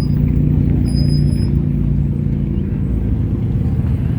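A car engine running steadily with a low, even drone.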